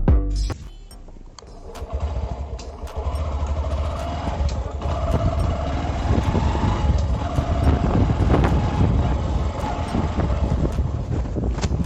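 A motorcycle engine running with a steady low rumble that comes in about two seconds in and holds.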